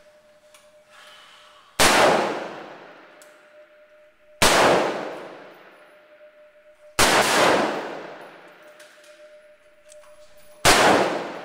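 Four single rifle shots about two and a half seconds apart. Each shot rings out with a long, echoing decay off the walls of an indoor firing range. A faint steady hum lies underneath.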